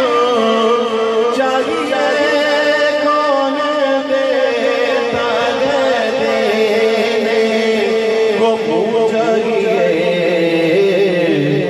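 A man singing a naat, the Urdu devotional poem in praise of the Prophet, into a microphone. He draws out long, wavering notes without words breaking through.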